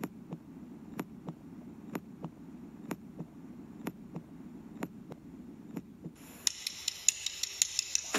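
Heartbeat sound effect: a soft double beat about once a second over a low hum. About six seconds in, a high shimmering hiss with quick sharp ticks comes in and grows louder, building up to the song. It is heard through a TV speaker.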